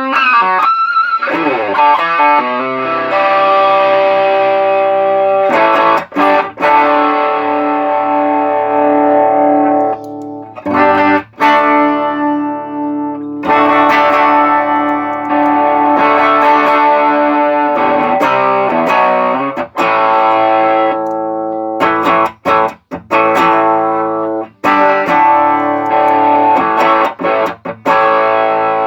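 Electric guitar played through an Ibanez Tube Screamer TS808 overdrive pedal, its switching circuit freshly repaired: held, overdriven chords and single notes, with a pitch slide near the start and several chords cut off short.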